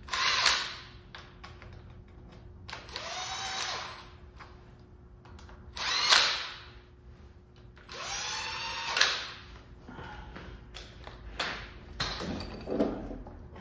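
Cordless power driver running bolts down into an engine in four short bursts of about a second each, each one spinning up. This snugs the bolts before they are finished by hand.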